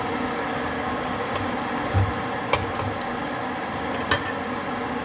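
Steady hum of a running electric appliance motor, with a soft thump about two seconds in and two light clicks of chopsticks against a nonstick frying pan while pork floss is being stirred.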